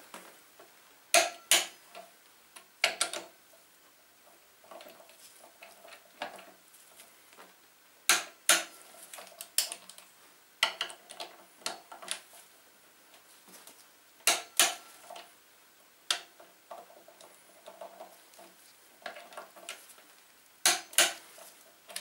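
Click-type torque wrench tightening a motorcycle's front brake caliper bolts: five sharp double clicks a few seconds apart, each the wrench breaking over at its set torque. Between them comes quieter ticking as the ratchet handle is swung back for the next pull.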